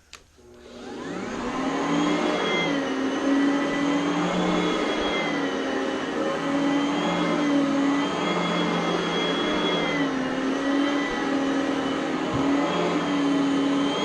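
Oreck Elevate Conquer upright vacuum switched on with a click, its motor spinning up with a rising whine over the first two seconds, then running steadily with its pitch dipping and rising every couple of seconds.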